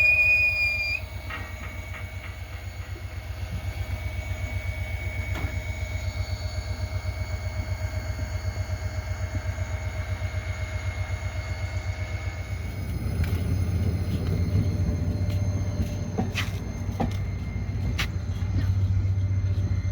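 Train brakes squealing as the passenger train comes to a stop, the squeal ending about a second in. Then the EMD GT26 diesel locomotive's engine runs with a low, evenly pulsing rumble that grows louder about halfway through, with a few sharp clicks near the end.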